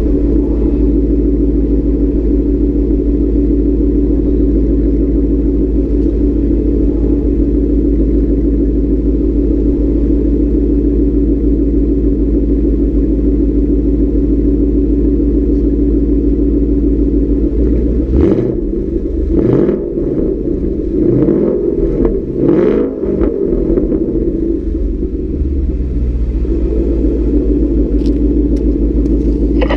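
2016 Mustang GT's 5.0 V8 through a Corsa Xtreme catback exhaust, loud at the tailpipes: a steady idle, then about 18 seconds in a string of quick throttle revs rising and falling for several seconds before it settles back to idle.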